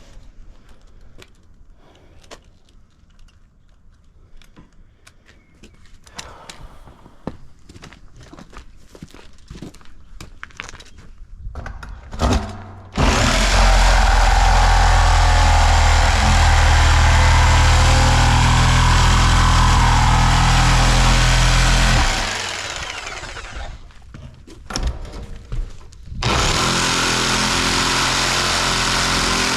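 Reciprocating saw with a fresh blade cutting into the steel wall of an old oil tank, in two loud steady runs: one starting about halfway in and lasting some nine seconds, and another starting again near the end. Before it there are only scattered light knocks and clicks.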